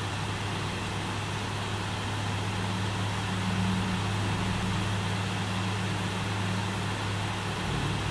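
Steady low mechanical hum, constant throughout, from a running motor or machine.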